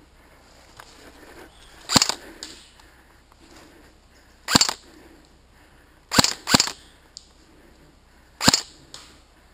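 Airsoft gun firing five single shots, sharp cracks a couple of seconds apart, with a quick pair about two-thirds of the way through.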